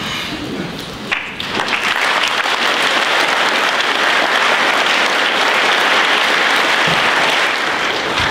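A hall full of schoolboys applauding. The clapping builds in about a second and a half in, holds steady and eases off near the end.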